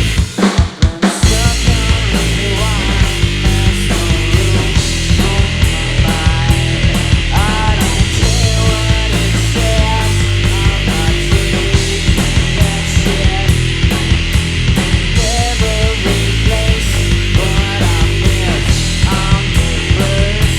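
Live rock trio of electric guitar, bass guitar and drums playing an instrumental passage, loud and steady, with gliding, bent guitar notes. The band breaks into a few short accented hits in the first second, then plays on.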